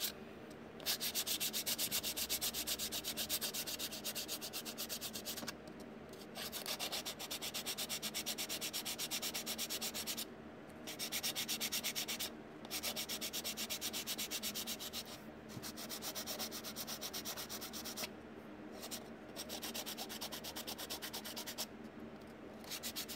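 Sanding block rubbing dried body filler on a plastic model hard-body fender by hand, in quick back-and-forth strokes. The strokes come in runs of a few seconds, with short pauses between them, while the rough filler over the cut seam is smoothed down.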